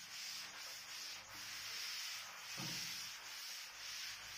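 A cloth wiping chalk off a chalkboard: a soft scrubbing hiss that swells and fades with repeated strokes.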